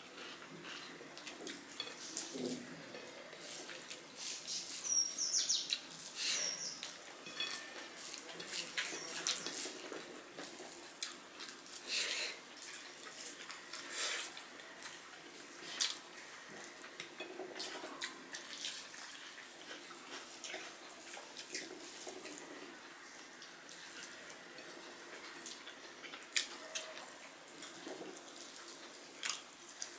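Hands squishing rice with curry on plates, with chewing and lip smacks: a run of quiet, irregular wet clicks and squelches.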